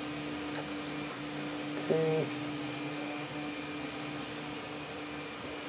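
Steady electrical mains hum from the workbench equipment, with one short pitched sound about two seconds in.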